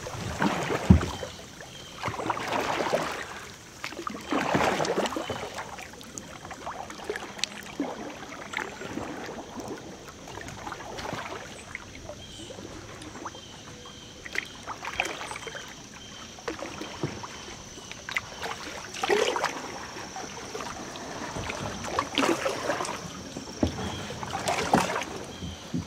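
Kayak paddle strokes swishing through the water in irregular bursts, with a few light knocks in between.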